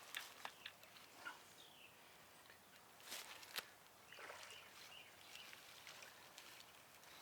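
Near silence with a few faint clicks and rustles.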